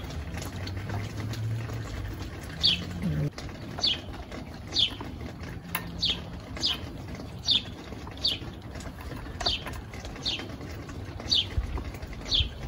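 A bird calling over and over: single short chirps, each falling in pitch, about once a second. Faint clicks of hands working parts on the outboard motor sound underneath.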